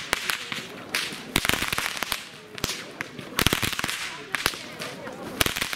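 Several Hungarian herdsmen's whips (karikás ostor) being cracked together in csergetés: sharp cracks in quick, rhythmic runs, with short gaps between the runs.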